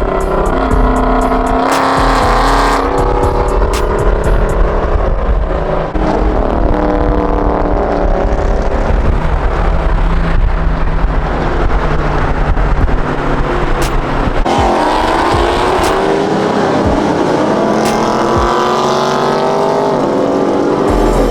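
Car engine running hard under acceleration, its pitch rising and falling several times, with a long climb in the second half.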